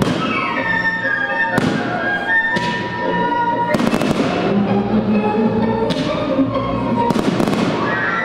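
Aerial firework shells bursting every second or two, each bang fading away in a trailing echo, with music playing through the display.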